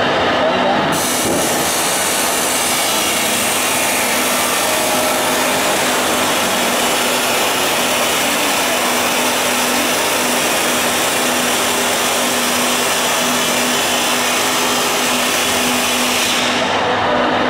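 Angle grinder grinding steel: a loud, steady grinding hiss that starts about a second in and cuts off near the end, over a constant low hum.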